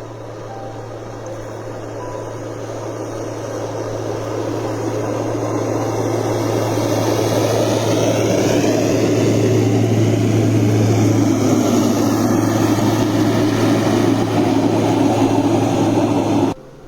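A heavy snow-clearing machine's engine running and growing steadily louder as it comes closer, holding loud for several seconds, then cutting off abruptly near the end.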